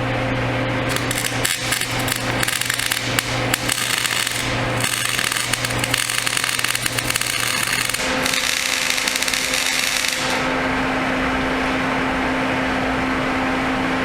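Electric welding arc crackling as a weld bead is run on the plow's broken joint, starting about a second in and stopping about ten seconds in. A steady low hum runs underneath throughout.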